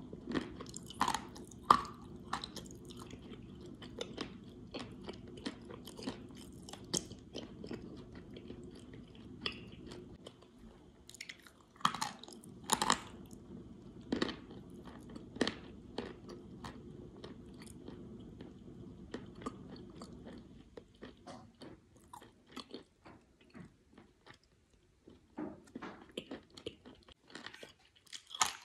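A person crunching and chewing a chunk of dry white clay: sharp, crisp crunches come thick and fast at first, thin out after the middle, then pick up again near the end.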